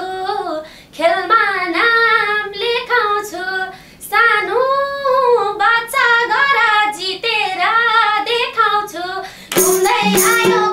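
A woman singing a Nepali dohori folk song unaccompanied, in ornamented phrases whose pitch slides and wavers, with short breaths between them. About nine and a half seconds in, instrumental accompaniment with percussion comes in under her.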